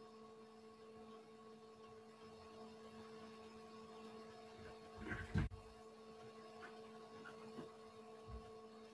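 Faint steady electrical hum made of several held tones, with a brief low thump and rustle about five seconds in and a softer thump near the end.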